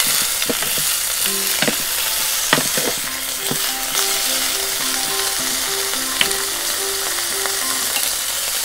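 Bean sprouts sizzling in hot oil in an electric pot as a wooden spatula stirs them, with scattered sharp clicks of the spatula against the pan. A quiet tune of short notes plays underneath from about a second in.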